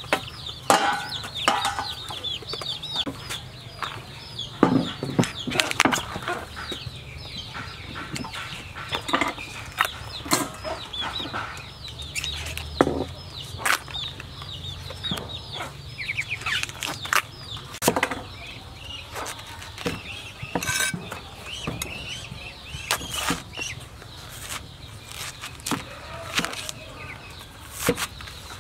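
Domestic chickens clucking and calling over and over, mixed with irregular sharp snaps and knocks as a banana blossom's bracts are peeled and cut with a cleaver on a wooden block.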